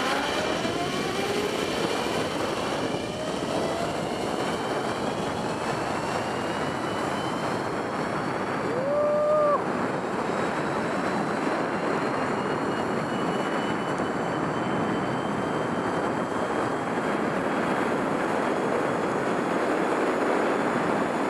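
Zip-line trolley running along the steel cable with wind rushing past: a steady loud rush with a faint whine that rises slowly in pitch as the ride picks up speed. A brief high tone sounds about nine seconds in.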